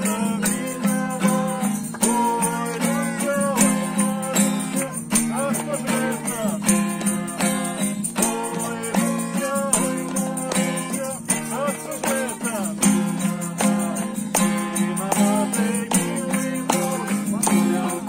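Acoustic guitar strummed steadily while people sing a song along with it.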